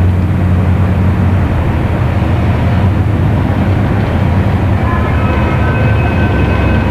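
Car engine and road noise heard from inside a moving car's cabin, a steady low drone. A faint high whine joins about five seconds in.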